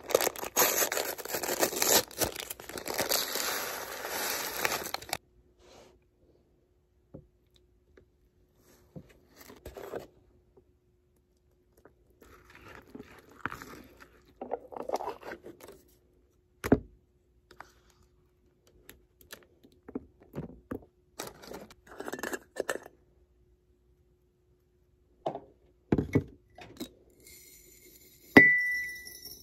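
Dry oats poured from a paper packet into a paper bowl, a dense rustle lasting about five seconds, then quiet spoon scrapes and taps as the oatmeal is stirred, with a couple of thumps. Near the end instant coffee is tipped from a glass jar into a ceramic mug, with a sharp clink, the loudest sound.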